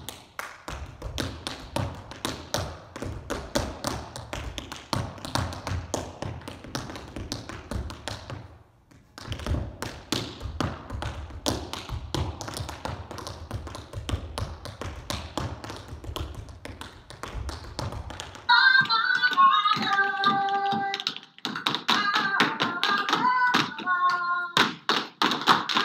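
Tap shoes striking a wooden floor in fast, dense rhythms, with a short break about eight and a half seconds in. About two-thirds of the way through, music with a melody comes in under the taps.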